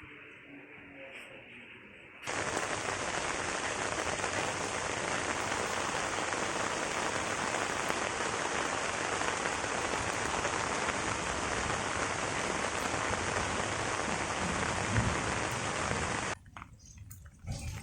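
Heavy rain falling, a steady even hiss that starts abruptly about two seconds in and cuts off near the end.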